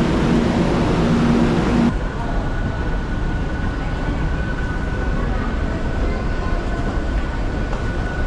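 Metro train at a station platform, a steady electric hum over crowd noise, cutting off abruptly about two seconds in. Then quieter station hall noise with a faint steady high tone.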